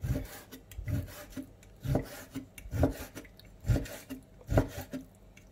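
A large kitchen knife slicing raw beef into thin strips on a wooden cutting board: each stroke draws the blade through the meat and ends in a knock on the board, six strokes at about one a second.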